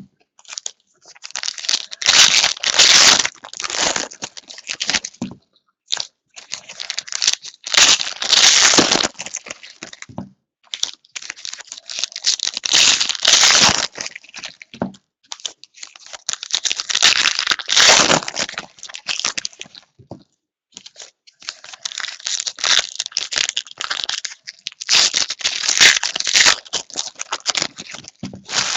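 Plastic trading-card pack wrappers being crinkled and torn open by hand, in about six bursts a few seconds apart.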